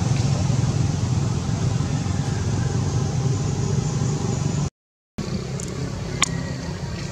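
Steady low engine rumble. It cuts out completely for half a second about two-thirds of the way through, then a quieter background carries on, broken by one sharp click.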